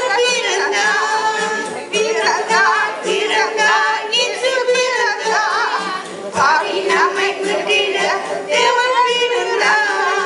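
A group of women singing a song together, voices wavering with vibrato on held notes, pausing briefly for breath a few times.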